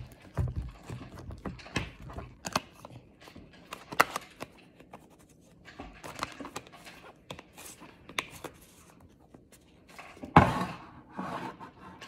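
Hands squishing and pressing slime in a plastic tub, giving scattered sticky clicks and pops, with a loud knock from the plastic tub being handled about ten seconds in.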